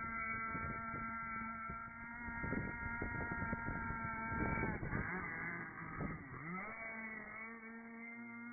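26cc Zenoah-copy two-stroke petrol engine of an RC speedboat running at speed with a steady whine. The pitch dips and climbs back up about five to seven seconds in, then it runs steadier and a little quieter.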